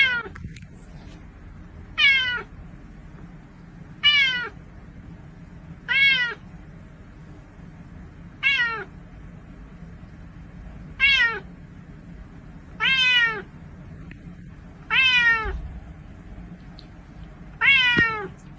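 A cat meowing over and over, about nine drawn-out meows, one every two seconds or so, each falling in pitch.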